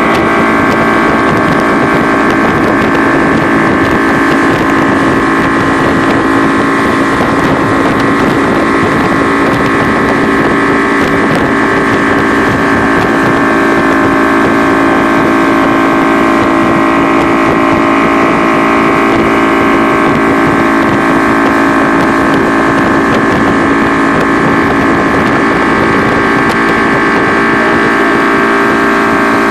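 V6 outboard motor running at a steady speed under load, towing a water skier. Its pitch and loudness hold even throughout.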